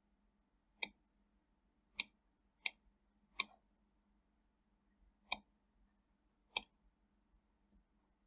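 Computer mouse clicking, six short sharp clicks at uneven intervals, with a faint steady hum underneath.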